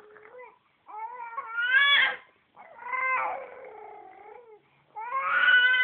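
A baby fussing: three drawn-out, high whiny cries, the first rising in pitch and the last held steady, with short softer sounds just before them.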